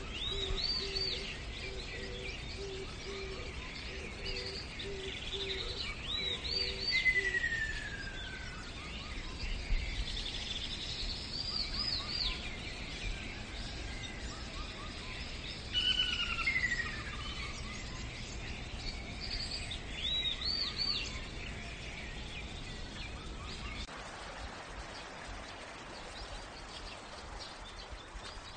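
Birdsong ambience: several small birds chirping in short arched notes, with a few falling whistles, over a steady low background rumble. A low pulsing note repeats through the first few seconds.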